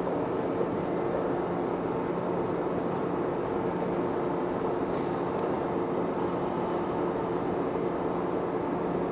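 Steady hum and rumble of an electric commuter train at a station platform, with a few steady low tones in the noise.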